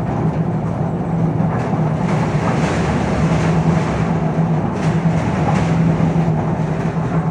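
Wheeled excavator's engine running steadily under hydraulic work, a constant low hum with a few short knocks and rattles.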